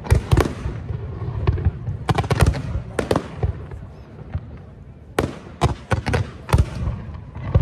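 Fireworks display: aerial shells bursting in quick clusters of sharp bangs, with a lull about four seconds in before another rapid run of bangs.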